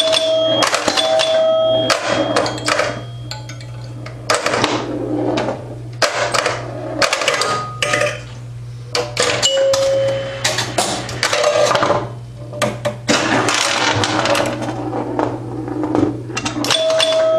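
1974 Bally Champ electromechanical pinball machine in play: relays, stepper units and solenoids clatter in quick irregular bursts, and the score chimes sound several short ringing tones, over a steady low hum.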